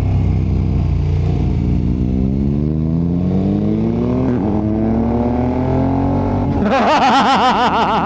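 KTM 1290 Super Adventure's V-twin engine accelerating under load, its pitch climbing steadily for several seconds, heard from on board the bike. Near the end a louder warbling sound rises over the engine.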